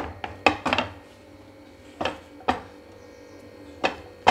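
Ceramic plates set down by the gas stove and a chocolate mould handled on a plate, giving a series of sharp clacks of crockery and mould, with a quick cluster about half a second in.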